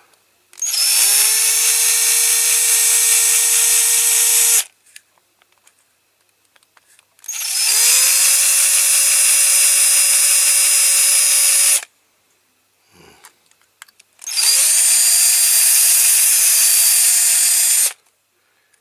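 Small electric drill with a small bit drilling out a rivet in a diecast model's base, run three times. Each run spins up with a rising whine, then holds steady for about four seconds before stopping.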